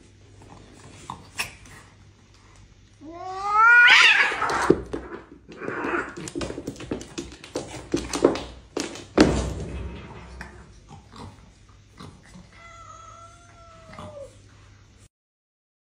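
Two cats fighting. One lets out a loud, rising yowl about three to four seconds in, followed by several seconds of scuffling with scratchy noise and sharp knocks. A lower, drawn-out yowl comes near the end.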